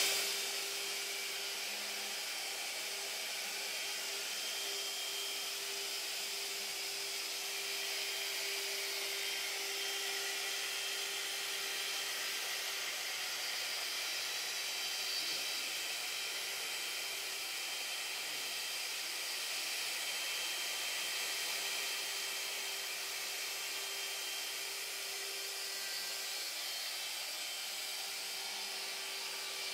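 Router spindle of a homemade CNC machine running steadily at high speed while its bit engraves a drawing into wood.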